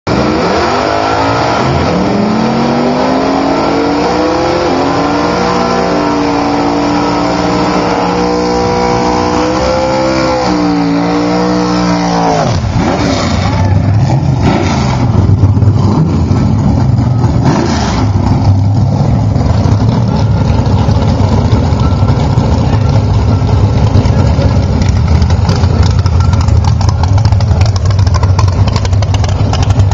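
A Chevy S-10 drag truck's engine revs up and is held at high rpm, its pitch wavering. About twelve seconds in the pitch drops off abruptly, and a louder, rougher engine noise with no clear pitch follows.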